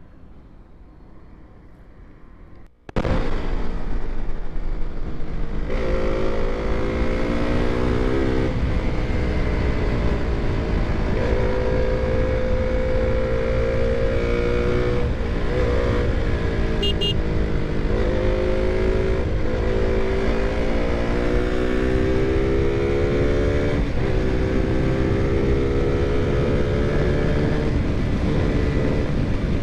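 KTM motorcycle's single-cylinder engine under way: its pitch climbs, breaks off at each gear change and climbs again, over wind and road noise. The engine comes in suddenly, loud, about three seconds in, after a quieter stretch.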